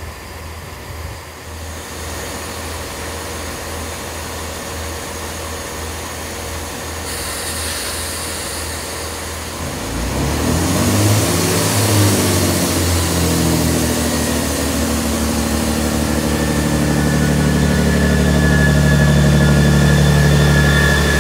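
Diesel train engine running under a steady low drone, then growing louder about halfway through as its engine note rises and falls, settling into a louder steady drone.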